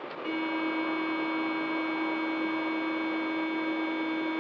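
Evidential breath-test machine sounding one steady, unwavering tone while a woman blows hard and continuously into its mouthpiece. The tone comes in a moment after she starts blowing, the sign that the machine is taking her breath sample, with a faint rush of breath underneath.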